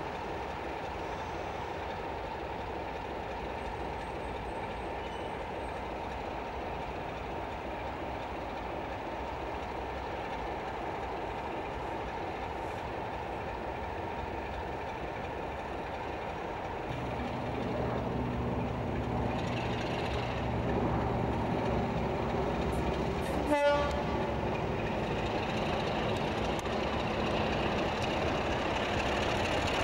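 Class 33 diesel locomotive's Sulzer eight-cylinder engine idling with a steady rumble, then about 17 seconds in the engine opens up to a deeper, louder note as power is applied to move off. A brief, sharp, pitched sound comes about 23 seconds in.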